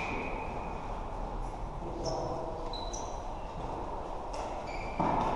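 Floorball play in a sports hall: a steady hall din with brief high squeaks of shoes on the court floor and light clicks of sticks and ball. A louder knock comes near the end.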